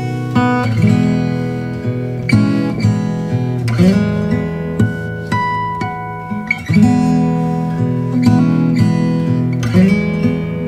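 Background music played on acoustic guitar: sustained chords with plucked notes ringing over them.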